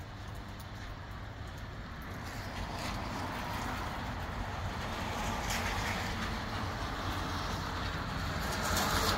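Sudden wind gusts in a rain shower: a rushing hiss over a low rumble, building steadily louder.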